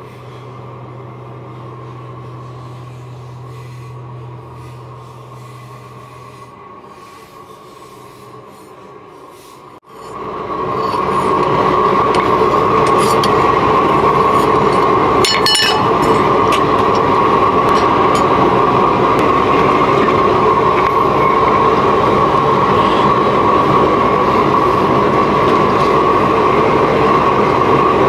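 Forge running with a loud, steady roar that starts abruptly about ten seconds in, after a quieter stretch with a low hum that fades out.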